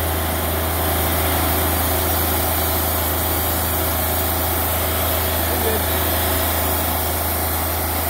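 Wood-Mizer LT40 portable band sawmill running steadily, its engine under load as the band blade cuts along an eastern red cedar log.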